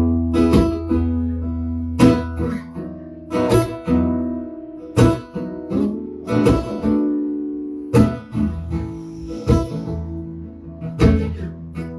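Acoustic guitar strummed in a slow, steady rhythm, a chord about every one and a half seconds, with each chord left ringing.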